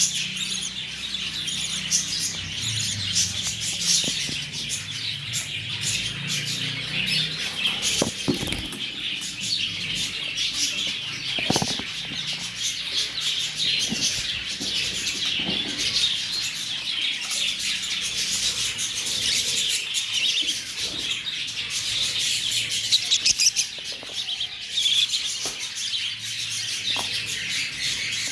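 A group of lovebirds chattering, many high-pitched chirps overlapping without a break, with scattered short clicks and knocks among them.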